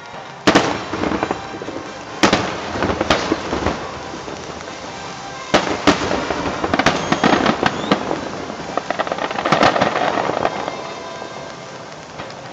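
Fireworks shells bursting over the water: a sharp boom about half a second in, two more around two and three seconds, another pair near the middle, then a dense run of rapid crackling reports that tails off near the end.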